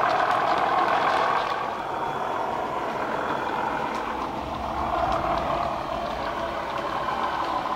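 Bachmann Class 37 model locomotive's DCC sound decoder playing a Class 37 diesel engine through a Megabass speaker, a steady engine drone with a deep rumble. It is loudest at first, drops after a second or so, and swells again as the locomotive comes back toward the camera, with a few faint clicks from the track.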